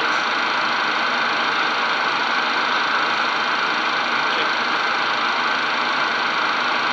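Steady cockpit noise of a Cessna Citation business jet in descent: an even rush of airflow and turbofan engine noise heard from inside the cockpit.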